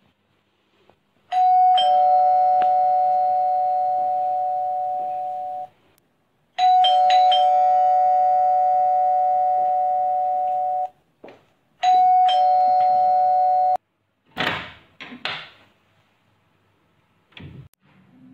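Two-tone electronic doorbell chime rung three times: the first two chimes last about four seconds each and the third about two, and each stops abruptly. A few short noises follow near the end.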